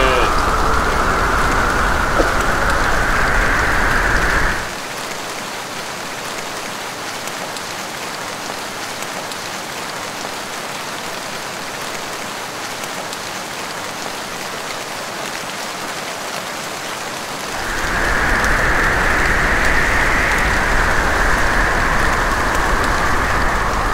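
Steady hiss of falling rain, louder for the first few seconds and again from about seventeen seconds in, quieter in between.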